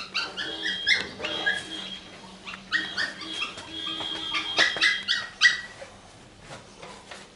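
A pet animal's high-pitched whimpering cries: many short, yelping calls in quick succession, thinning out and fading after about five seconds.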